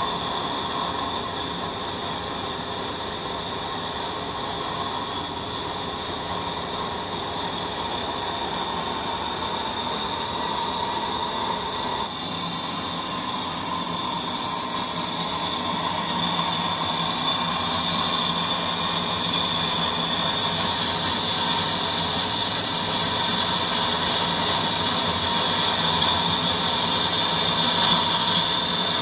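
Large engine lathe running while a boring bar cuts steel inside a thick cylinder-head blank: a steady machining noise with a held whine. The sound changes abruptly about twelve seconds in and runs a little louder after that.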